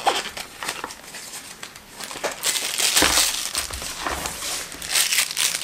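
Cardboard and plastic packaging of a boxed pair of earphones rustling and crinkling as hands unpack it, in irregular handling noises with a louder stretch about halfway through and another near the end.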